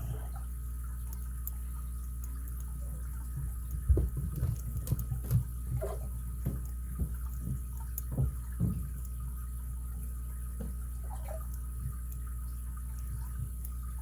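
Small clicks and taps of a lock pick and tensioner working inside an ABUS 83CS padlock, coming in an irregular cluster over about five seconds midway, over a steady low hum.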